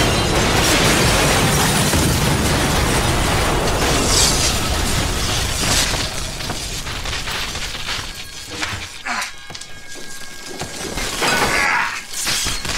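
A bomb going off in a room: a sudden blast at the start that rolls on loudly for several seconds, then separate crashes of falling debris and breaking glass at intervals as it dies down.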